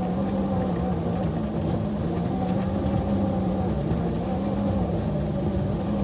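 Ride-on railroad locomotive's engine running steadily at a constant pitch while it pushes a Russell snow plow.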